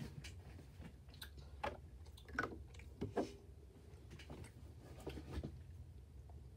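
A person chewing candy, with scattered small mouth clicks and a few soft noises over a low steady hum.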